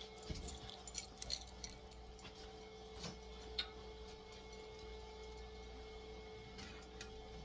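Scattered light clicks and clinks of a screwdriver and small metal and plastic parts being handled while working a stuck screw out of a die-cast model car's display base, several in quick succession in the first second or so and a few single ones around three seconds in, over a steady faint hum.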